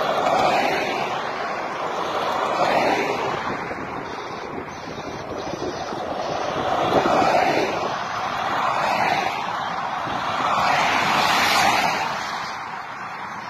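Cars of a motorcade passing at speed one after another, their tyre and engine noise swelling and fading several times.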